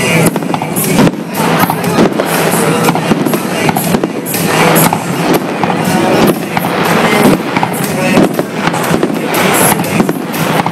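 Aerial fireworks shells bursting overhead in quick succession: a loud, dense series of sharp bangs and crackles.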